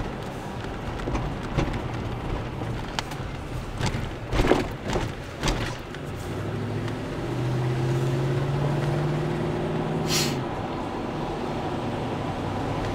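A car driving, heard from inside the cabin: steady engine hum and tyre noise on the road. A few sharp knocks come about four to six seconds in, and around the middle the engine note rises slightly and gets louder as the car accelerates.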